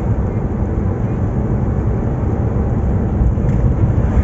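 Daihatsu Zebra Espass running, heard as a steady, loud low rumble of engine and vehicle noise.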